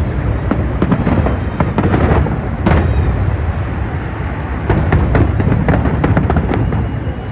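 New Year fireworks exploding: many sharp bangs in quick succession over a constant low rumble of distant bursts.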